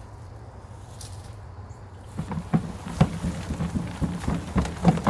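A sweet potato plant's root mass being pulled up out of loose soil in a plastic tote: rustling and a run of short knocks and thuds that start about two seconds in and grow denser near the end, over a low steady rumble.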